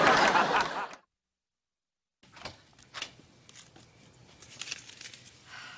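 Studio audience laughter fading out in the first second, then a second of dead silence, then faint scattered knocks and clicks of a door and footsteps as someone comes into a room.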